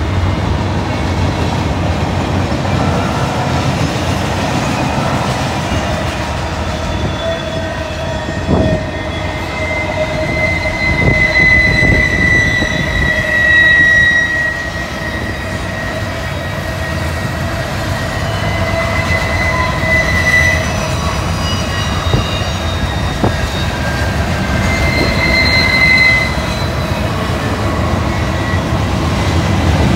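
Norfolk Southern freight train rolling past close by: a steady low rumble of freight cars on the rails, with the last diesel locomotive at the start. The wheels squeal in high ringing tones that come and go, loudest near the middle, and a few sharp clicks sound as wheels cross rail joints.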